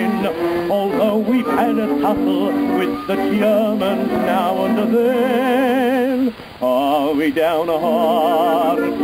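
Music: a singing voice holding long notes with heavy vibrato over an accompaniment, breaking off briefly about six and a half seconds in.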